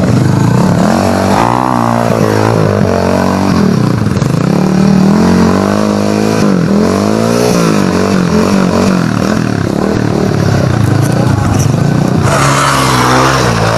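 Dirt bike engine revving hard and dropping back again and again, its pitch rising and falling in repeated surges as it is ridden up a steep dirt climb.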